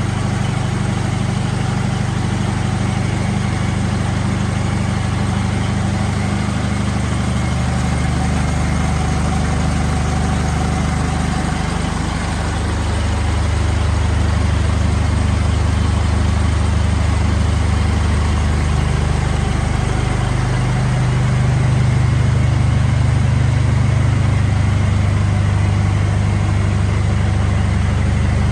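A vehicle engine idling steadily, a low hum under a steady hiss.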